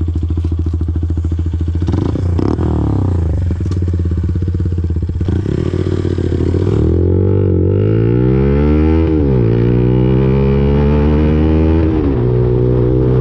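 Lexmoto Viper 125 motorcycle's 125 cc single-cylinder engine idling, with a brief rev about two seconds in. From about seven seconds in it pulls away, the pitch rising under acceleration, dropping sharply at an upshift a little after nine seconds and again at a second upshift about twelve seconds in, then climbing again.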